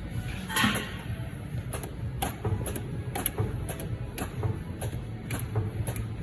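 Kettle-spout welding machinery running with a steady low hum and sharp, irregular clicks, about two or three a second, after a short hiss about half a second in.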